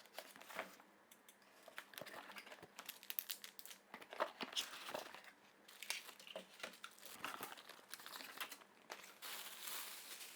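Vacuum packaging being unpacked: quiet crinkling and rustling of wrapping with scattered light clicks and taps as parts are handled.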